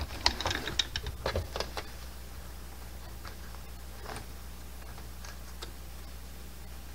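Brother computerized sewing machine running a decorative leaf stitch, a quick run of irregular mechanical clicks over the first two seconds. After that only a few scattered light clicks.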